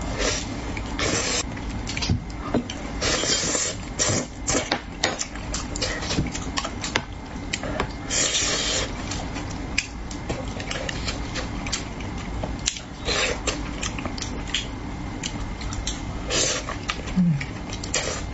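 Eating sounds from spicy braised carp: wet chewing, lip smacks and slurps, a string of quick clicks with several longer slurping bursts.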